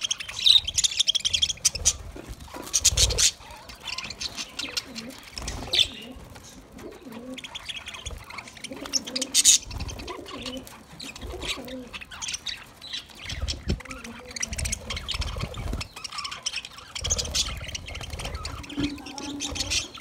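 A flock of budgerigars chirping and chattering as they feed at a seed dish, with short high calls coming thick and fast and sharp clicks mixed in.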